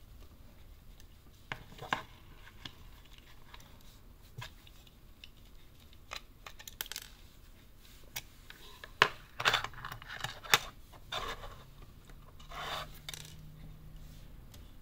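Small screwdriver and gloved hands working a die-cast toy car free of its screwed-on black plastic display base: scattered light clicks and taps of plastic and small screws. A burst of sharper clicks comes about nine to eleven seconds in, and a brief rubbing sound comes shortly before the end.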